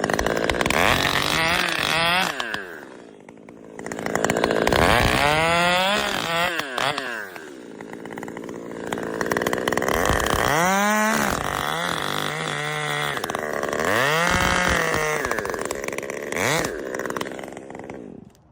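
Chainsaw cutting, its engine revving up and dropping back about four times, the pitch climbing and falling with each surge. It fades out near the end.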